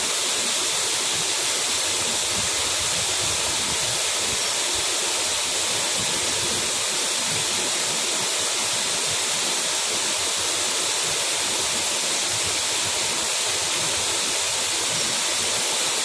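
Waterfall with several streams pouring down a rock face into pools: a steady, even rush of falling water, more hiss than rumble.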